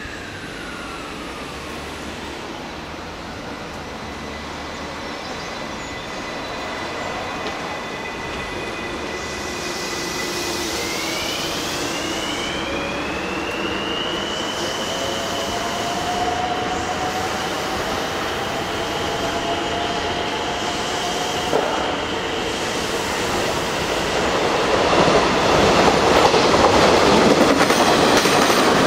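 JR West 583 series electric train running through a station at speed. A distant rumble of wheels on rail slowly grows, with a rising whine about ten seconds in. About twenty-four seconds in it becomes a loud clatter as the cars pass close by.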